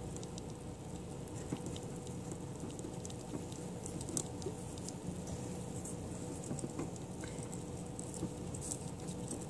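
Pet rat gnawing at the shell of a dyed Easter egg: scattered small clicks and scratches of teeth on shell and paws shifting on the wire cage floor.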